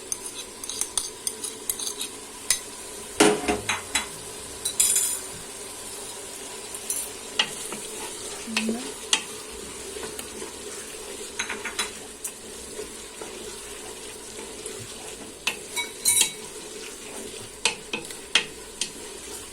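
Onion, peppers and garlic frying in hot oil in a pressure-cooker pot, a steady sizzle, while a spoon stirs and scrapes against the pot with irregular clicks and knocks.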